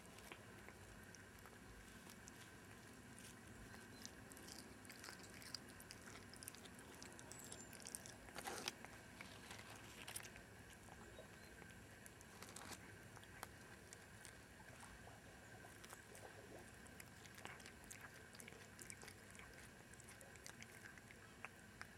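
Faint, irregular wet crunching and clicking of a cat chewing a mouse, with a few louder crunches in the middle.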